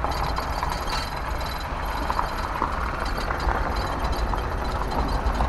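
Road noise inside a truck's cab driving slowly on a rough dirt road: a steady low rumble with scattered small rattles and knocks.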